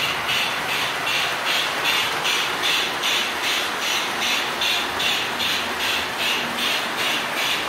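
O scale model train running on its track: a steady rumble with a hissing pulse repeating about four times a second.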